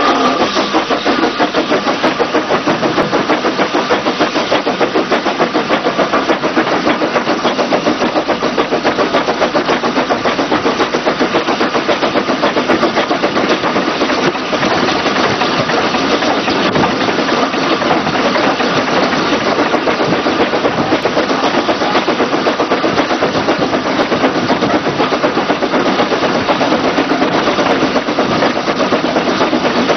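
Small steam tank locomotive running along the line, heard from its footplate: a steady, even run of exhaust beats mixed with wheel-on-rail clatter.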